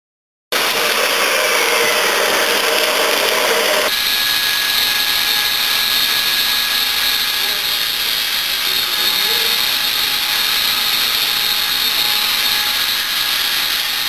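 A 300-litre screw mixer for dry bulk powders running, its helical steel agitator and drive making a loud, steady mechanical noise with a constant whine. The sound starts abruptly about half a second in and changes character about four seconds in.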